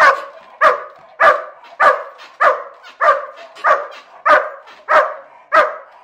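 Large black shepherd-type dog barking over and over at an even, steady pace, about three barks every two seconds.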